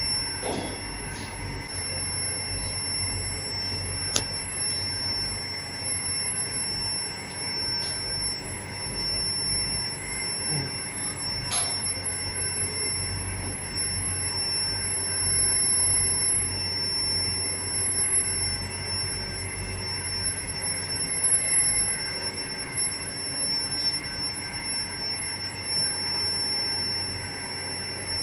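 Tin induction melting furnace running, giving off a steady high-pitched whine over a low hum, with a couple of sharp clicks.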